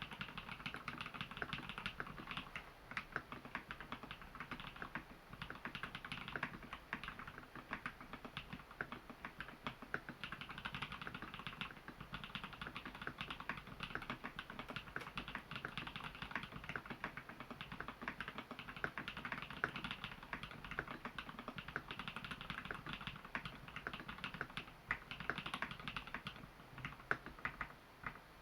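Steady fast typing on a custom mechanical keyboard in an XO v3 case, with Holy Panda tactile switches lubed with Krytox grease and filmed, and Thinsulate dampening added inside the case: a continuous run of crisp keystrokes with no real pauses.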